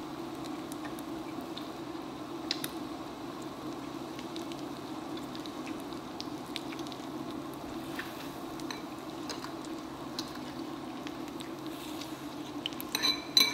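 Electric hot pot and grill combo cooking: a steady sizzling, simmering hiss from meat on the grill dome and broth bubbling around it, with scattered light clicks of tongs and chopsticks on the grill and pot, and a few louder clinks near the end.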